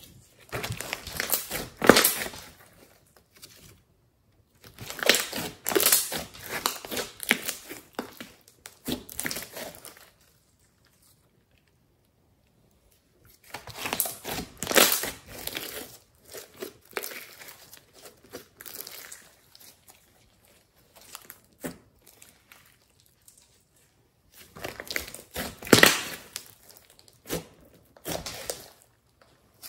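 Hands squeezing, stretching and poking thick slime with clay mixed in, making wet crackling squelches in bouts of a few seconds, with short silent pauses between them.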